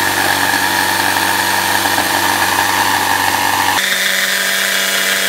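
Ryobi jigsaw running steadily as it cuts along a traced line in plywood; its motor pitch steps up about four seconds in.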